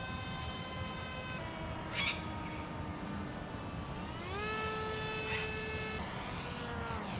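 Electric motor and propeller of a home-built radio-controlled foam plane (a 60%-scale FT Explorer) whining in flight. The pitch drops about a second and a half in, climbs smoothly around four seconds in and falls again near the end as the throttle is worked. Two brief high chirps come about two and five seconds in.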